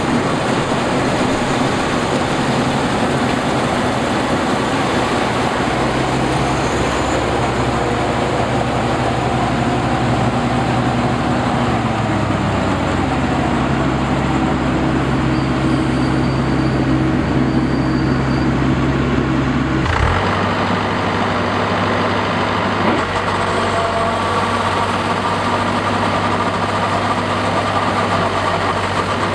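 Combine harvester running steadily: a loud engine note under a dense mechanical rattle. The engine note dips briefly about twelve seconds in and changes again at about twenty seconds.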